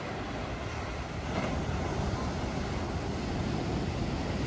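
Ocean surf breaking and washing in over rocks and a pebble beach, a steady rushing that swells a little about a second and a half in, with wind rumbling on the microphone.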